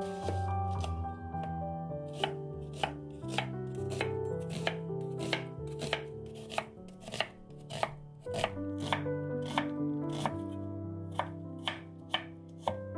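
Kitchen knife chopping onion on a wooden cutting board, with sharp strikes at about two a second, sparse for the first two seconds and then steady, over soft background music.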